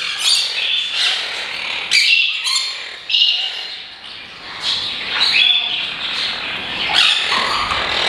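Caged parrots chirping and squawking in short, high calls, roughly two a second.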